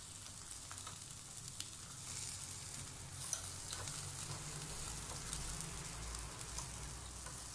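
Bezdirme meat patties and çöp şiş skewers sizzling steadily on an electric grill, with a few light clicks of metal tongs against the wire grate as the patties are turned.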